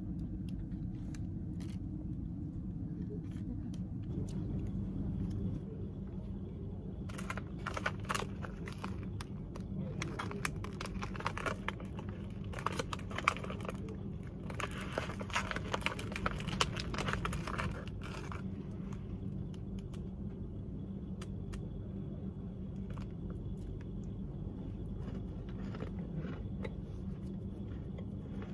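Plastic snack wrapper crinkling and crackling as it is handled, in a burst of about ten seconds, over a steady low hum.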